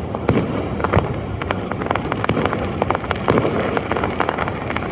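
Fireworks going off in quick, irregular succession, many sharp bangs and crackles a second, over a steady rushing background noise.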